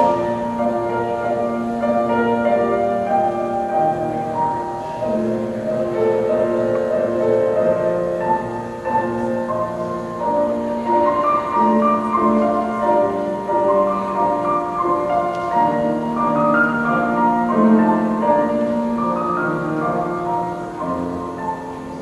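Slow classical-style piano music, a melody over held chords.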